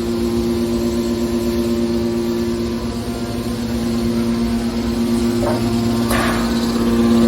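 Steady hum of running industrial machinery, a machine's motor or hydraulic pump droning at a constant pitch, with a brief sharp noise about six seconds in.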